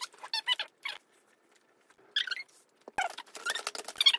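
Short high-pitched squeaks from laser-cut wooden kit pieces and a plastic bag of parts being handled, with one sharp knock of wood on the table about three seconds in.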